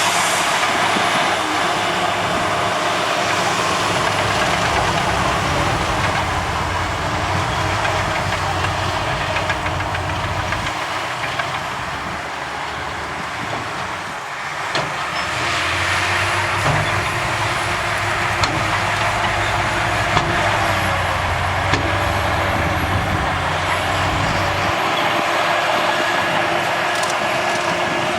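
Heavy diesel earthmoving machinery running under load, with a steady mechanical clatter and a few short knocks. The low engine drone fades about a third of the way in, returns, and fades again near the end.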